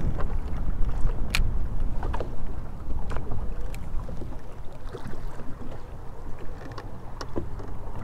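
Wind buffeting the microphone and small waves slapping against a fishing boat's hull, with scattered sharp taps; the wind rumble eases after about four seconds.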